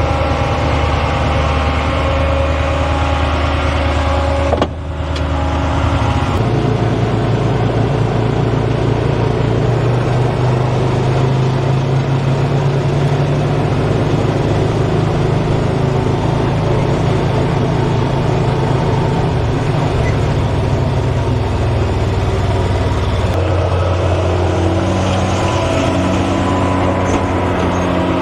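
A motor vehicle's engine running while driving, its pitch stepping up and down a few times as it changes speed, with a brief dropout about five seconds in.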